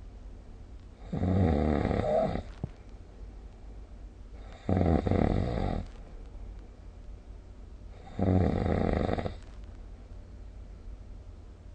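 A sleeping person snoring: three long snores, each a little over a second, about three and a half seconds apart, with quiet breathing gaps between.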